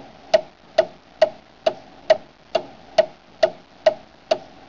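Wind-up mechanical kitchen timer ticking as it counts down, a steady, even tick a little over twice a second.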